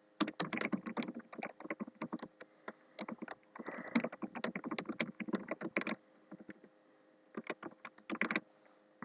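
Typing on a computer keyboard: a quick run of keystrokes for about six seconds, a pause, then a short flurry of keys near the end.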